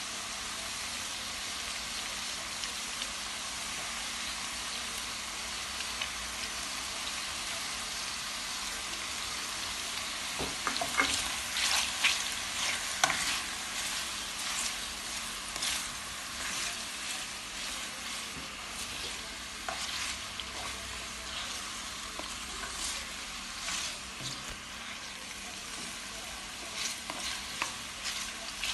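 Spaghetti with saltfish frying in a pan, a steady sizzle. From about ten seconds in, a utensil stirring through it, with irregular scrapes and clicks against the pan.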